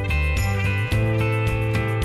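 Background music: sustained pitched notes over a steady beat.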